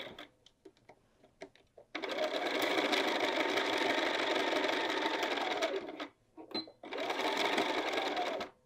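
Bernina sewing machine stitching a seam through layered bag fabric in two steady runs of a few seconds each. It stops just before the first run and briefly between the two runs, and stops again near the end.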